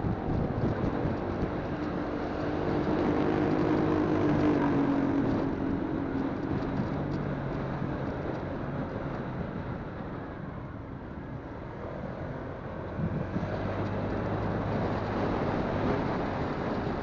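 Motorcycle riding along a road: the engine runs under a steady rush of wind and road noise. The engine note is loudest and falls in pitch a few seconds in, and a steadier low engine tone comes back from about two-thirds of the way through.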